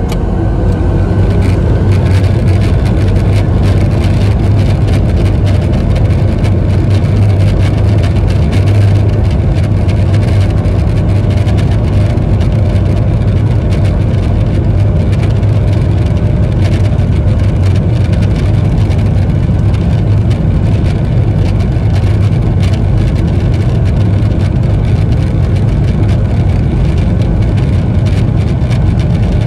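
Boeing 737-800's CFM56-7B turbofan engines spooling up to takeoff thrust, heard from a cabin seat over the wing. It is a loud, steady roar that builds over the first couple of seconds and then holds through the takeoff roll.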